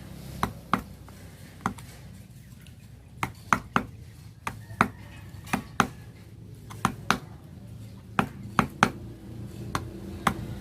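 A wooden mallet tapping a wood-carving chisel: sharp, irregular knocks, about one or two a second and often in quick pairs, as the chisel is driven into the board.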